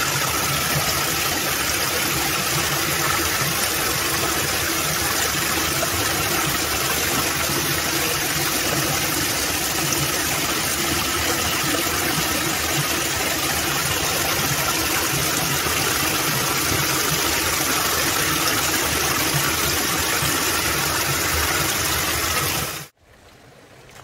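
Rushing water of a wadi stream or small waterfall, a steady hiss that cuts off suddenly near the end.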